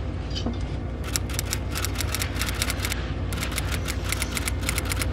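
Typewriter keystroke sound effect: a run of quick clicks starts about a second in, breaks briefly just before three seconds, then runs on again, over a steady low hum.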